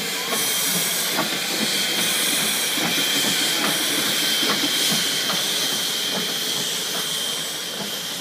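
QPSR steam locomotive No. 448 hissing steam, a steady high hiss with a thin whistle-like tone in it. Faint regular ticks, a little under two a second, run underneath.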